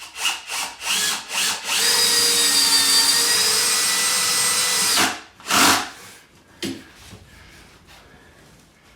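Power drill running: a few short bursts, then a steady run of about three seconds and one more short burst, as it drills or drives screws to fix a cabinet base to a wall.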